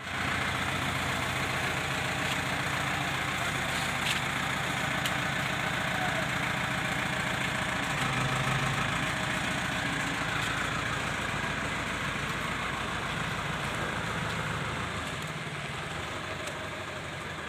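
Diesel engine of an Escorts Hydra 14 mobile crane running steadily under load while it hoists a heavy fuel storage tank, the engine note swelling briefly about eight seconds in.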